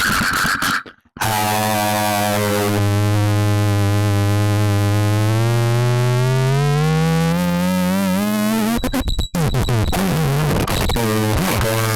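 Distorted air-raid siren sound: one loud, buzzy tone that slowly winds up in pitch for about seven seconds, breaks off, then comes back as a lower, wavering drone.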